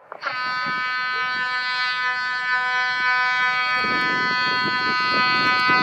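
Scramble alarm: a loud electric hooter sounding one steady, unbroken buzzing tone that starts abruptly. About four seconds in, a rougher clattering noise joins under it.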